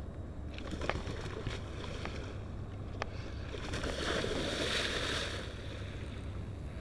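A hooked tarpon thrashing and splashing at the surface beside the boat, with a burst of heavy splashing lasting about two seconds, a little under four seconds in. A few sharp clicks come before it, over a steady low rumble.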